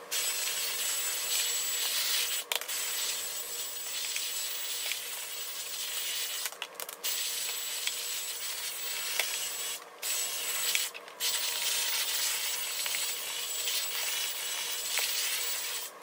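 Shinto rasp filing an ABS plastic electrical box: a steady scraping hiss with a few brief breaks.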